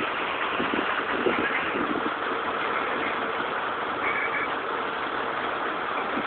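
Terex Reedrill drill rig's engine running steadily: a dense, even mechanical noise with a faint steady hum under it.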